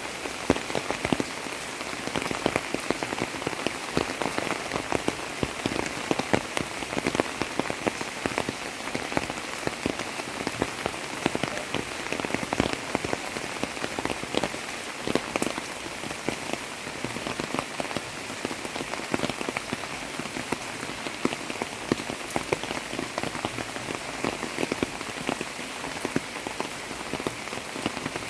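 Monsoon rain falling steadily, with many separate drop hits heard through the steady hiss of the rain.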